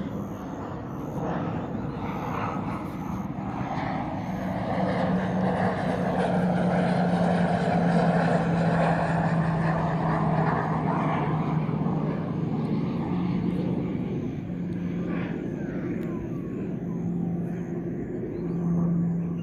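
A Republic of Singapore Air Force Pilatus PC-21 turboprop trainer flying past overhead. Its engine and propeller noise grows to a peak about halfway through and then fades, with a steady droning tone that drops slightly in pitch as it passes.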